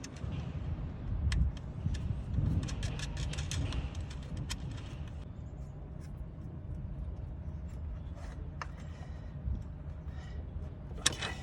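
Small metallic clicks and clinks of hands and tools fastening the electrical wire onto a newly fitted alternator, with a louder clack near the end, over a steady low rumble.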